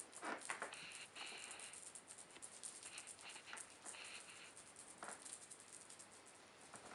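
Maine Coon kittens playing with a feather wand teaser: the feathers rustle and small paws patter and scratch on cloth in quick, uneven bursts of soft ticks.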